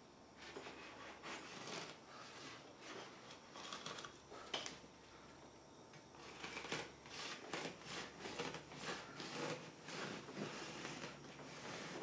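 Katana blade sawing back and forth through a pneumatic tire's rubber, a faint, irregular series of rasping, scraping strokes with a sharp click about four and a half seconds in.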